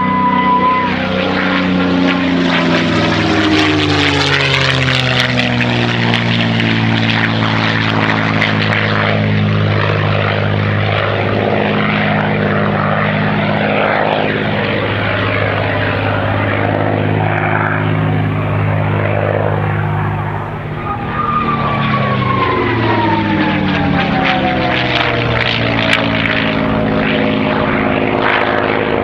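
P-51D Mustang's Rolls-Royce Merlin V-12 engine and propeller, droning steadily. The pitch slides down as the plane passes at the start, and again from about twenty seconds in.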